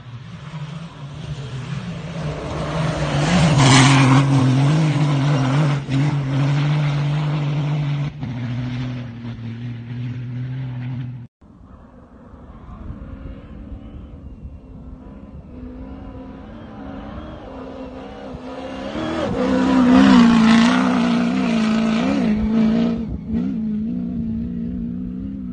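Rally cars' engines at full throttle racing past on a desert track, in two separate passes. Each engine grows loud as it comes close, peaks as it goes by (about four seconds in and again near twenty seconds), then fades. The sound cuts off abruptly between the two passes.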